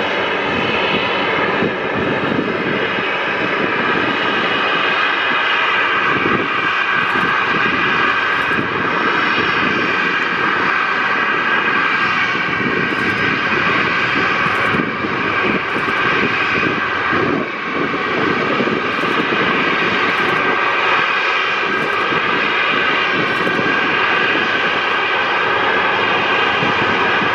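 Boeing 737-800's CFM56 jet engines running steadily and loudly: a whine of several layered tones over a broad rushing noise.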